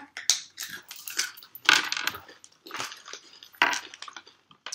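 Two people crunching and chewing hard-shelled coated peanuts, an irregular run of crackling crunches.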